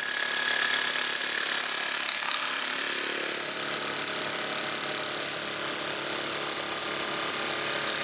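Rotary hammer driving a 3/4-inch by 8-foot copper-clad ground rod into the ground, hammering steadily.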